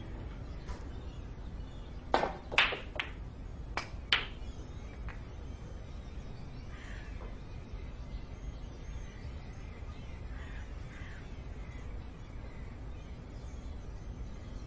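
A quick run of five or six sharp clicks about two seconds in, then crows cawing faintly now and then over a steady low background rumble.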